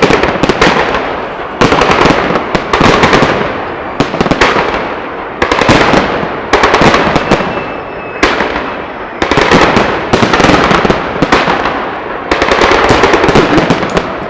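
Fireworks going off in rapid succession, a new volley of dense crackling about every second to second and a half, each one starting sharply and fading before the next.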